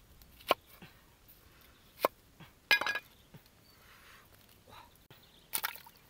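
Heavy knife chopping an onion on a thick wooden chopping block: a few sharp, separate chops, one about three seconds in with a brief metallic ring.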